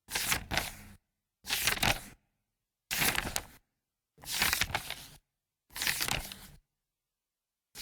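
Paper book pages being turned one at a time: short crisp rustles about every one and a half seconds, with dead silence between them. Five full page turns, and a sixth begins at the very end.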